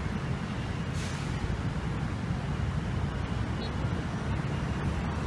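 Steady city traffic noise from a busy multi-lane road: a low rumble of engines and tyres, with a brief hiss about a second in.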